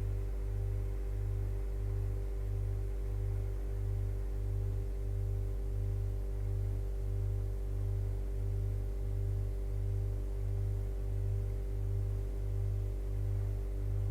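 Refrigerator compressor humming steadily, heard from inside the fridge: a deep hum that throbs about twice a second, with fainter steady tones above it.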